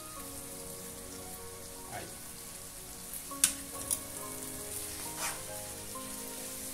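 Boiled spaghetti sizzling and frying in a pan of salted butter and garlic as it is turned with metal tongs, with a few sharp clicks of the tongs against the pan about halfway through. Faint background music underneath.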